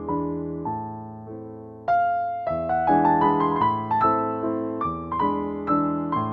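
Gentle piano background music: notes and chords struck at an unhurried pace, each ringing and fading, with the playing growing louder about two seconds in.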